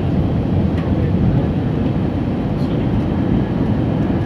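Airbus A320 jet airliner, a steady, loud, low rumble of engines and airflow.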